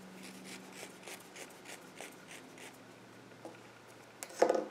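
Yarn being drawn through the fingers: a run of soft, quick rustling strokes about three a second, then a louder short clatter near the end.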